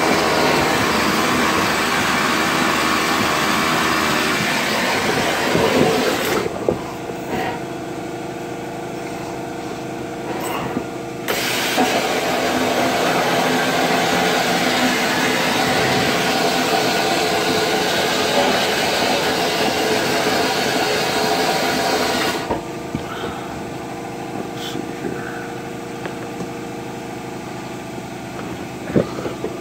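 Vapor blast cabinet (Vapor Honing Technologies Weekend Warrior) with its slurry gun hissing as it blasts a part. The gun stops about six seconds in, fires again about five seconds later, and stops once more about two-thirds of the way through. A steady machine hum keeps going underneath when the gun is off.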